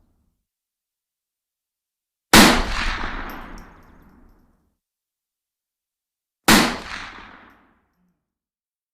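Two single rifle shots about four seconds apart, each a sharp crack followed by a tail of echo dying away over a second or two. The first shot is the louder and rings longer.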